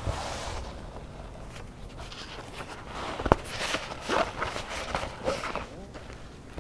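Stiff waxed cotton and a leather knee patch rustling and scraping under the hands during hand-stitching, with a sharp click about three seconds in and a busier run of rustling after it.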